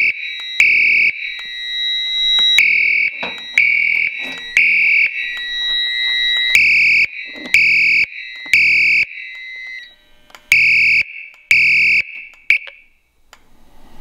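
Potter SH-120 fire alarm horn sounding its electromechanical temporal tone: three half-second blasts, a pause, then three more, repeating. A thin steady high beep runs underneath until about ten seconds in, and the horn cuts off suddenly near the end as the alarm is silenced at the annunciator.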